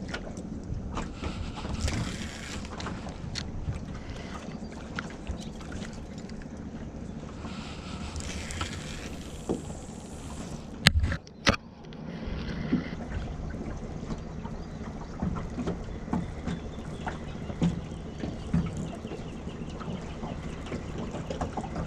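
Small boat on the water: water lapping against the hull and wind on the microphone, with small clicks and knocks from handling a spinning rod and reel. Two sharp knocks come about 11 seconds in.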